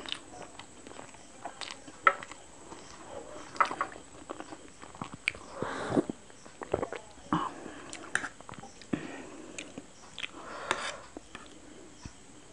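Close-miked chewing and mouth sounds of someone eating masala instant noodles, with sharp clicks of a fork against a plate. About halfway through come sips and swallows from a glass.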